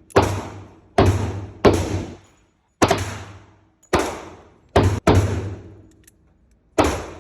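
Kimber K6s .357 Magnum revolver firing a string of about eight shots, roughly a second apart, each with a long echoing tail.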